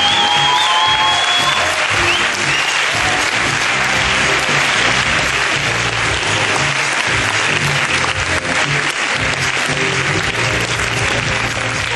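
A large audience applauding in a hall, with music playing underneath.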